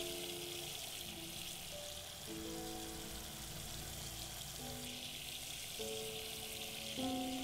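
Water spraying steadily from a shampoo-basin hose into a salon wash basin, a continuous hiss, over soft background music of slow, held notes.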